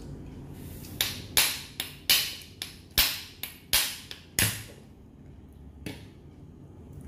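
Steamed mud crab shell cracking and snapping apart by hand: a quick run of about ten sharp cracks over three seconds, then a quieter stretch with a couple of single clicks.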